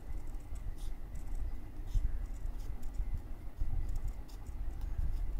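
Scissors snipping and trimming a small paper cut-out, with paper rustling and light scratchy ticks over low handling knocks.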